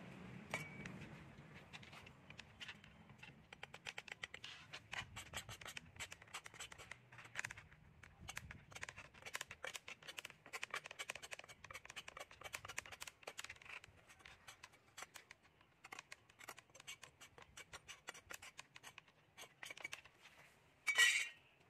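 Rapid, irregular scraping strokes on a bamboo fishing-rod pole as it is smoothed by hand, several a second, with one louder, longer stroke near the end.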